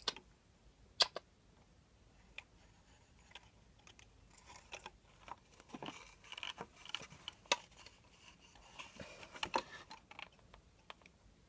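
Scattered light clicks and taps with soft scrabbling in between: a hamster climbing a small hurdle of thin metal rods and cardboard tubes, and the hurdle being handled.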